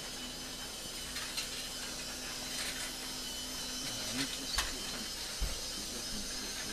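Toy train running around its oval floor track: its small motor gives a steady hum under a rattling hiss, with a few clicks.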